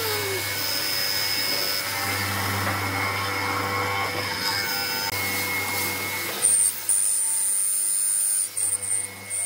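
Benchtop hollow-chisel mortiser running, its motor humming steadily as the square chisel and auger bore into hardwood. About six seconds in the sound turns louder, with a high whine that breaks off briefly a few times near the end.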